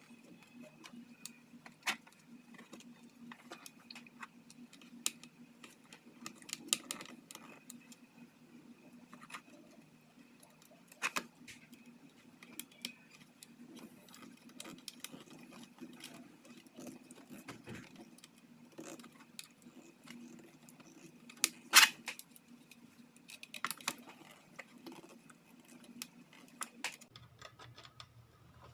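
Scattered small clicks and metallic ticks as an SSD and its small screws are handled and tightened into a laptop drive caddy. One sharper click a little past the middle, over a faint steady hum that stops shortly before the end.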